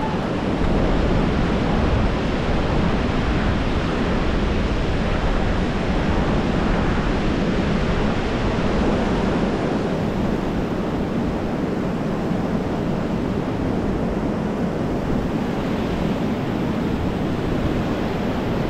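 Steady rushing of wind and water, with wind buffeting the microphone and a heavy low rumble.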